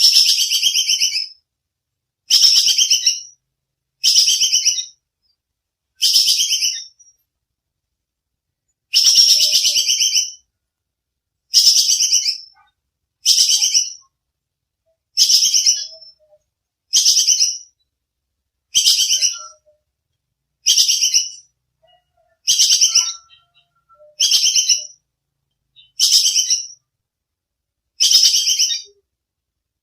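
Squirrel ('bajing kekes') calling over and over: sharp, high-pitched rattling chatters about a second long each, one every one to two seconds, with a longer pause about seven seconds in.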